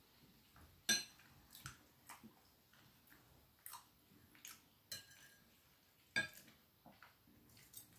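Metal fork and knife clinking and scraping on a plate as the last bites of pastry are gathered, a handful of faint, scattered clicks.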